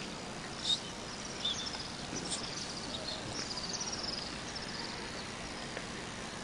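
Small birds chirping in short, high twitters and quick trills over a faint steady background hiss.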